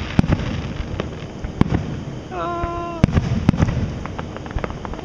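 Aerial fireworks bursting: a run of sharp bangs with smaller crackles, the sharpest reports coming around three to three and a half seconds in.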